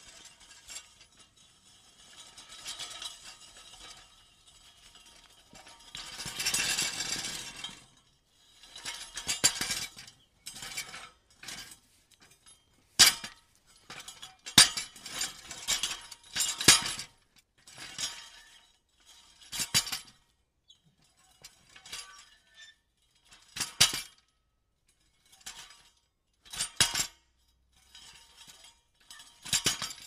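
Loose metal pieces being shuffled and jostled together, clinking in irregular bursts with short silent gaps between them. About six to eight seconds in comes a longer, denser stretch of clinking.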